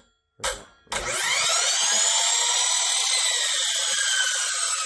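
Kobalt 12-inch sliding compound miter saw's motor switched on after two clicks, spinning up with a rising high whine to a steady run, then starting to wind down near the end. The faulty trigger switch only starts the saw when pulled at the sweet spot.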